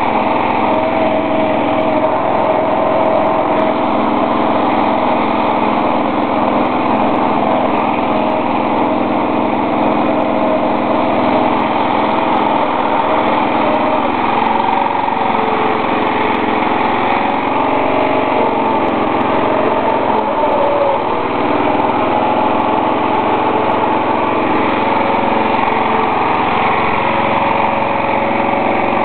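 Small gasoline engine of a 1982 Simplicity running steadily on its own after a hard start, warming up.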